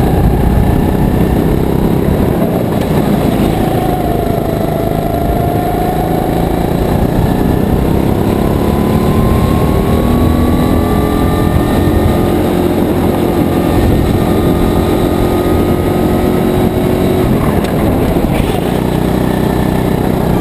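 SodiKart GT4 rental kart's 270cc single-cylinder four-stroke engine running at speed, heard onboard. Its pitch dips about four seconds in, then climbs over the next several seconds as the kart drives through the corners.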